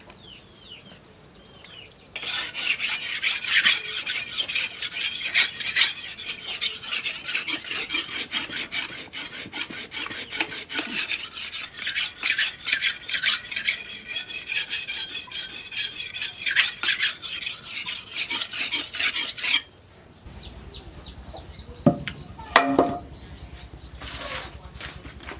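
Rapid, steady rasping strokes of abrasive work on a steel cleaver blade, which stop suddenly about twenty seconds in. After that there is a quieter background with a couple of sharp knocks near the end.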